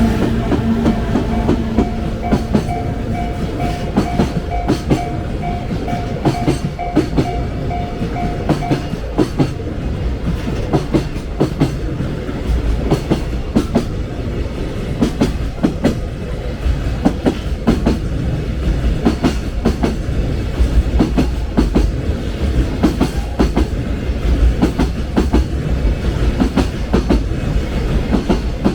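Freight train wagons rolling past, their wheels clacking over rail joints in a steady run of grouped clicks. For the first several seconds a level crossing alarm also rings in a pulsing tone, then stops.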